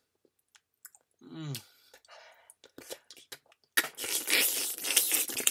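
A person's mouth making exaggerated wet kissing noises close to the microphone, mimicking a couple making out: a short falling hum about a second and a half in, scattered lip smacks, then a loud run of rapid wet slurping and smacking from about four seconds in.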